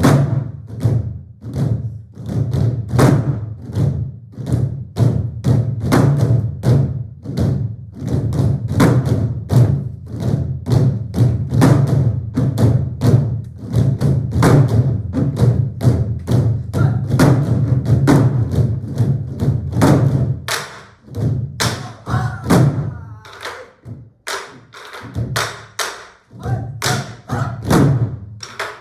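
Ensemble of Korean buk barrel drums played together, a dense run of stick strikes on the drumheads and wooden shells with a deep booming body. The strikes grow sparser and less even in the last third.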